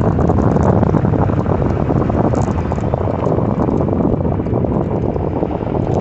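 Wind rushing over the microphone of a phone riding on a moving electric bicycle, a loud, steady, rumbling noise.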